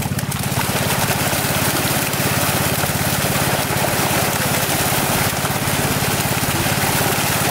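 Large netted fish thrashing and splashing hard at the water's surface, a dense churning of spray. Underneath, a small engine runs steadily.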